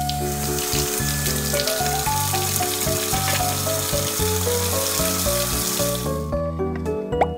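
Water running from a toy kitchen faucet and splashing onto plastic vegetables in a plastic sink, a steady hiss that stops about six seconds in, over light background music.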